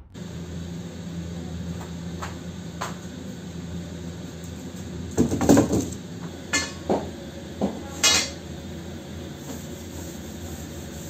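Clanks and knocks of a long steel hollow bar being handled on a wooden worktable: a loud, slightly longer clank about five seconds in, then four sharper knocks over the next three seconds. A steady low hum runs underneath.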